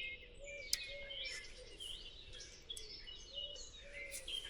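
Several songbirds singing and chirping at once, with a short low note repeating underneath and one sharp click a little under a second in.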